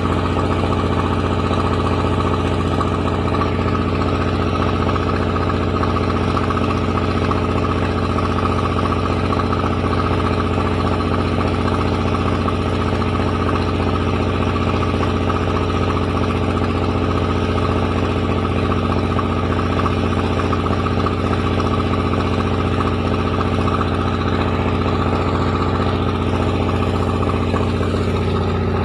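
Rice milling machine (padi huller) running steadily: a continuous loud mechanical hum with a strong low drone and several steady tones above it, unchanging in speed.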